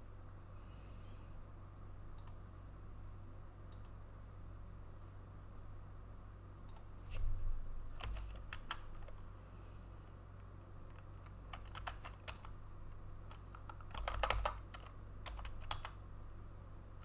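Computer keyboard typing in a few short runs of key taps, about seven seconds in and again from about eleven seconds on, over a steady low hum.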